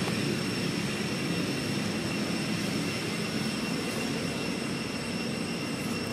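Steady outdoor background noise: a low, even rumble with a thin, constant high whine over it, easing off slightly near the end.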